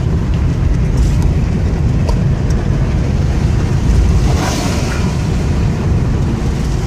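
Steady low rumble of a vehicle's engine and road noise heard from inside the moving vehicle, with a brief hiss about four and a half seconds in.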